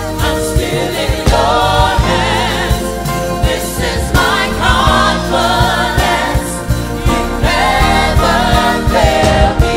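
Live gospel worship song: a lead vocalist sings with vibrato over backing voices and a band with drums and a sustained bass line.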